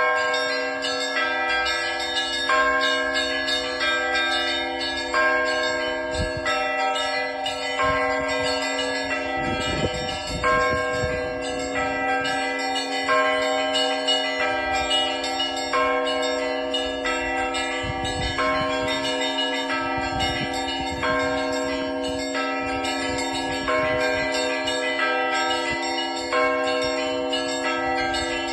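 Church bells rung by an electronic automatic bell-ringer: several bells struck in a cycle that repeats about every two and a half seconds, over the steady hum of a large bell.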